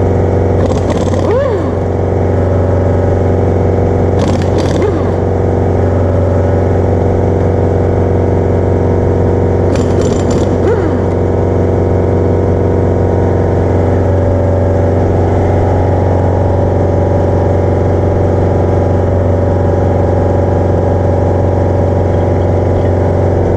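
A steady mechanical drone with a strong low hum holds at a constant pitch throughout. Three brief whirring sweeps fall in pitch over it: one near the start, one about four seconds in and one about ten seconds in.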